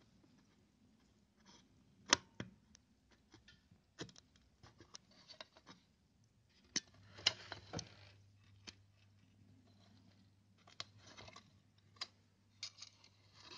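Scattered sharp clicks and scraping as a soldering iron and fingers work at the wire pads of a COB LED module and it is pried off the reflector's metal housing. A low steady hum comes in about seven seconds in.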